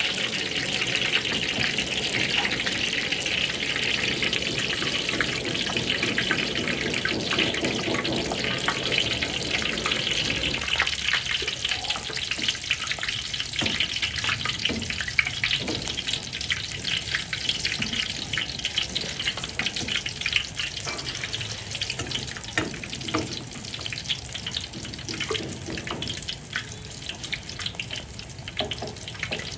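Frying in hot oil in a pan: a steady sizzle with dense crackling that eases after about ten seconds.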